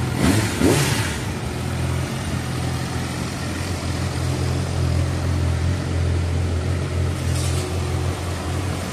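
Yamaha R6's inline-four engine blipped once with the throttle in the first second, rising and falling in pitch, then idling steadily.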